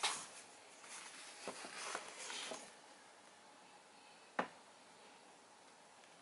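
Faint rustling of a paper instruction sheet being handled, with one sharp tap about four seconds in, then quiet room tone.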